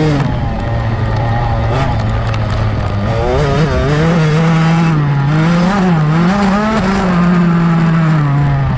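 GasGas MC65 65cc two-stroke motocross engine running hard under racing throttle. Its pitch dips at the start, climbs about three seconds in, then wavers up and down with the throttle and eases near the end. Wind rushes over the helmet-mounted microphone.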